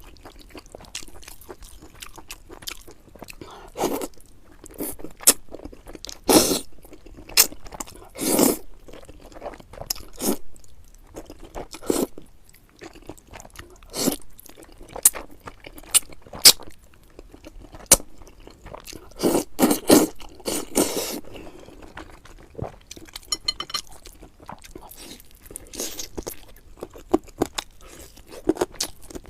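A person eating noodles and chicken close to the microphone: irregular crunching bites and chewing, with sharp clicks throughout and a few louder crunches.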